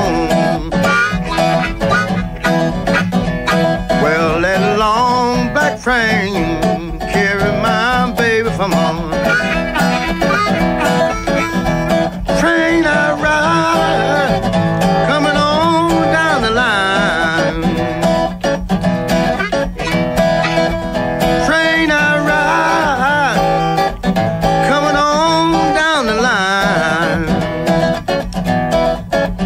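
Electric Chicago blues recording: a band with guitar playing a steady groove under a lead of bending, wavering notes.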